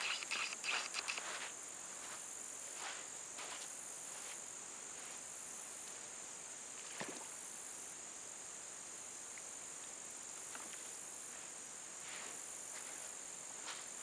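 Steady, high-pitched insect chorus of crickets chirring without a break. Footsteps crunch on sand and gravel, loudest in the first second and a half and again near the end, with a single sharp click about halfway.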